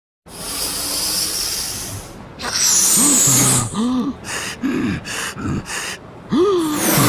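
Cartoon sound track: a steady hiss for about two seconds and a quick falling whistle, then a cartoon monster's voice gasping and huffing in a run of short breathy puffs, each with a brief rising-and-falling grunt, as it blows up an inflatable swim ring.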